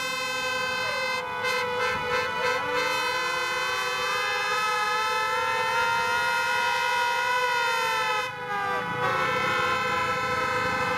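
Several speedway motorcycles' 500 cc single-cylinder engines running together, their pitch rising and falling as the riders rev and ease off.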